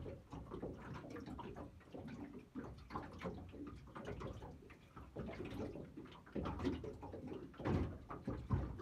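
Small waves lapping and slapping against the hull of a small boat, with irregular knocks and splashes, the strongest near the end.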